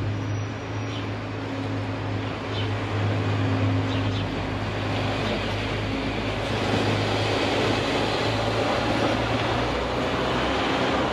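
Traffic noise: a vehicle engine's steady low hum under the noise of passing traffic, which swells about halfway through.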